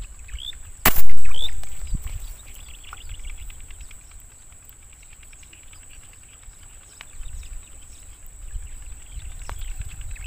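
A single sharp air-gun shot about a second in, fired at a fish in a canal, dying away over about half a second. Short rising bird chirps come around the shot and again at the end.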